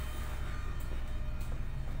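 Steady low hum of a ship's machinery, heard on board.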